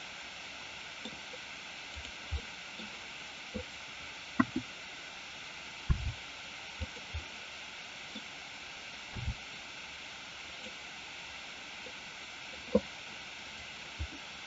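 Steady microphone hiss with about ten short, soft clicks and low knocks scattered through it, a second or more apart, from a computer mouse being moved and clicked.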